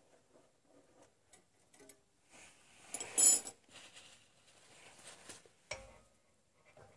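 Rear brake caliper being handled and fitted onto its bracket over the pads: small metal clicks and rattles, a brief loud scrape about three seconds in, and a sharp, ringing metal clink near the end.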